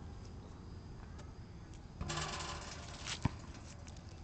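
A basketball bounced on an outdoor asphalt court: a few faint bounces, a rattling for about a second about two seconds in, then one sharp bounce of the ball just past three seconds.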